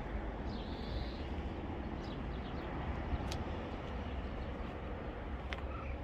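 Outdoor ambience: a steady low rumble, with a few faint, short bird chirps, the clearest about half a second in.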